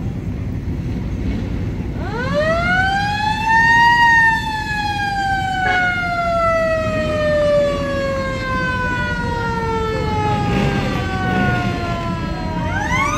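A siren winds up over about two seconds, then winds down slowly over the next eight seconds, and starts winding up again near the end.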